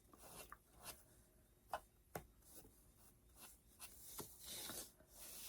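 Faint rubbing with a few soft taps: walnut distressing ink being worked around the edges of a painted craft piece.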